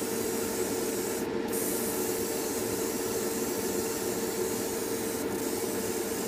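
Airbrush hissing as it sprays paint, breaking off briefly twice, over the steady hum of a spray booth extractor fan and air compressor.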